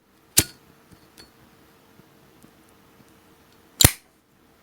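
Two sharp metallic clinks of a Zippo lighter's hinged lid, about three seconds apart, each with a brief bright ring, and a few faint ticks between them.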